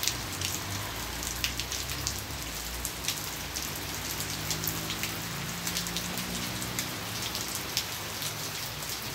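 Steady rain falling on a wet concrete yard and puddles: an even hiss with frequent sharp drop splats.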